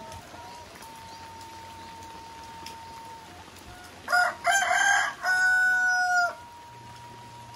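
A rooster crowing once, about four seconds in: two short opening notes and a long held final note that drops as it ends, over steady rain.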